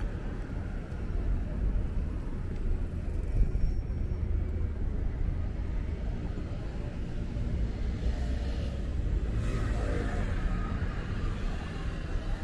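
Busy city street at night: a steady low rumble of traffic, with a stretch of louder passing activity, voices or a vehicle, about eight to ten seconds in.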